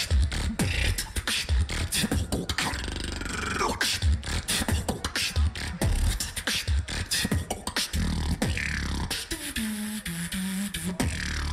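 Competitive solo beatboxing: a fast, dense pattern of deep kick drums, snares and clicking hi-hats, with a stepped pitched vocal line near the end.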